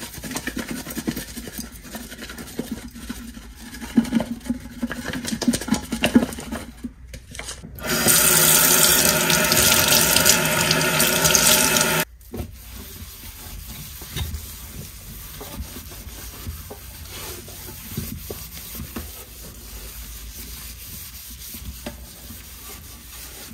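Kitchen tap running into the sink for about four seconds, starting around eight seconds in and stopping suddenly. Before it there are scattered light knocks and rubbing from things being handled and wiped at the sink; after it there are only a few faint clicks.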